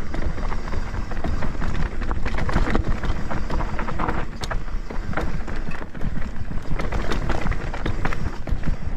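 Mountain bike riding fast down a rough dirt trail: tyres on dirt and the bike rattling with a dense run of clicks and knocks, over a heavy low rumble of wind on the microphone.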